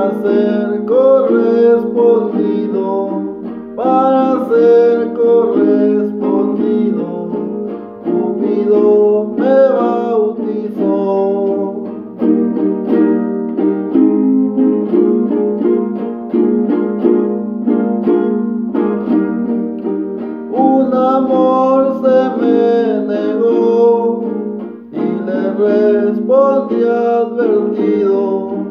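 A man singing verses in son jarocho style over a steadily strummed jarana jarocha. His voice drops out for several seconds in the middle while the strumming carries on, then returns for the last part.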